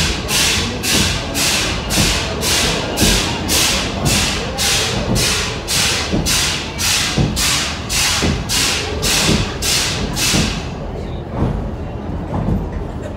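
Steam locomotive chuffing at about two exhaust beats a second, echoing in a tunnel, with the train's cars thumping over the track; the chuffing stops about ten seconds in as the engine shuts off steam and coasts.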